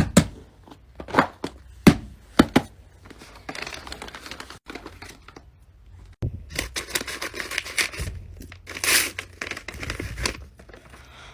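Fidget toys being handled: a few sharp plastic clicks or pops in the first seconds, then stretches of crinkling, rustling noise.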